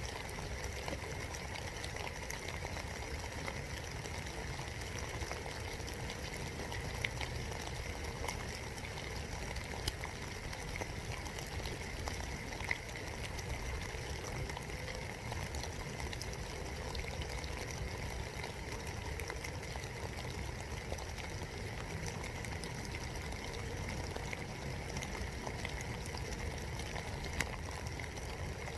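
Steady rain heard from inside a birdhouse, an even patter with a few sharper taps of single drops.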